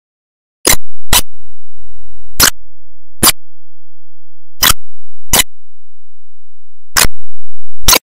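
Sharp, loud clicks, eight in all, falling roughly in pairs with a gap of about a second and a half between pairs.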